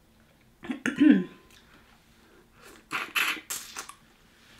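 A woman coughing and clearing her throat: a short voiced cough about a second in, then a second breathy cough near three seconds.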